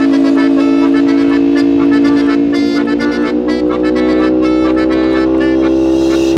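Music: a long held chord that slowly rises in pitch, over a quick ticking beat.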